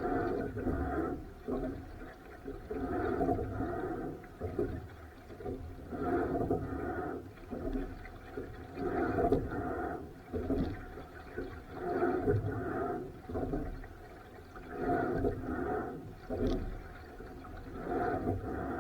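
Water sloshing and rushing in time with rowing strokes, one surge about every three seconds.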